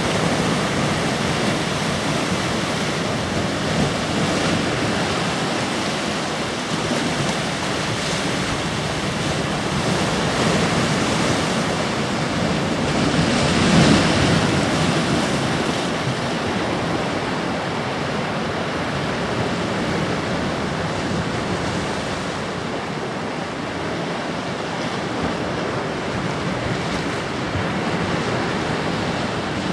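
Sea waves breaking and washing over jagged shoreline rocks: a steady surf, with one louder surge a little before halfway through.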